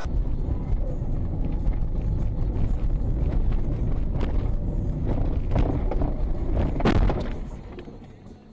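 Low, steady rumble of a car driving, heard inside the cabin through a dash-cam microphone, with scattered clicks and knocks. It fades away near the end.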